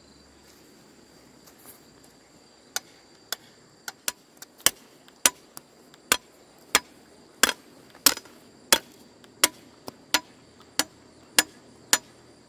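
A hand tool striking something hard over and over: sharp, evenly spaced knocks about one and a half a second, beginning about three seconds in.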